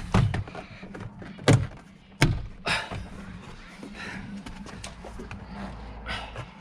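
Plastic trim clips of a Fiat 500 door card popping out of the door as the card is pulled free: four sharp snaps in the first three seconds, then smaller knocks and handling noise.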